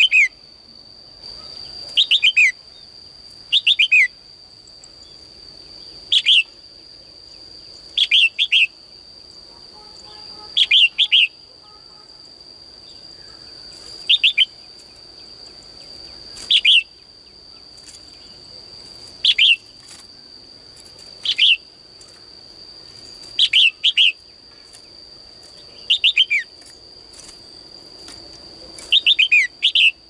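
Caged female red-whiskered bulbul calling, a short, quick phrase of two or three downward-sliding notes repeated about every two seconds, over a steady high whine.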